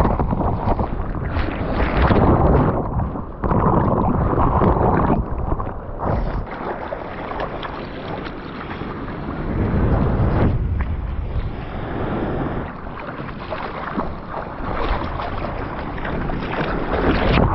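Churning whitewater and splashing water over a camera mounted on a bodyboard. The sound is loudest in the first few seconds while the foam washes over the lens, then settles into uneven sloshing and rushing with a surge about ten seconds in.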